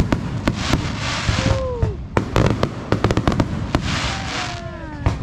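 Fireworks show with aerial shells bursting: a rapid, irregular run of sharp bangs and crackles, with two stretches of crackling hiss about a second in and about four seconds in. A few falling pitched tones sound between the bangs about four seconds in.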